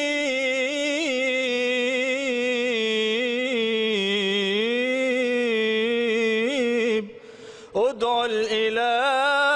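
Solo unaccompanied male voice singing an Arabic devotional inshad in praise of the Prophet: one long, melismatic line held on drawn-out vowels with ornamented turns. About seven seconds in he breaks off briefly for breath, then comes back in on the next line.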